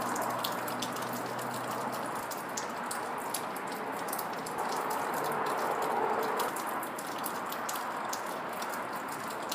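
Steady rain falling, with many individual drops ticking sharply on a surface close by; the rush swells a little about five seconds in.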